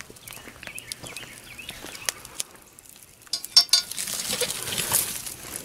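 A metal fire hook scraping through hot ash and clinking against a cast iron cornbread stick pan as it hooks and lifts the pan out of the coals. There are a few light clicks at first, then a louder scraping and rattling stretch from about three seconds in.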